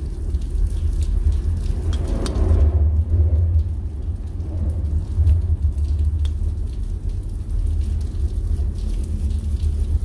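Steady rain with scattered drips, over a loud, steady low rumble; the sound swells briefly about two seconds in.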